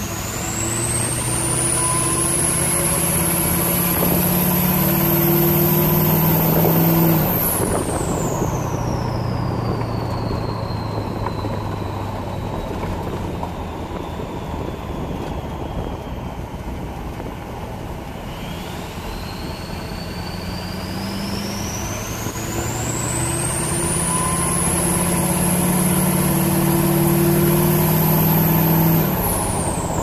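6.0 Powerstroke diesel V8 accelerating hard twice, its KC 10-blade turbo whistling as it spools. The whistle climbs to a piercing high shriek over several seconds, then falls steeply as the throttle is let off. It rises again in the second half and falls away again near the end.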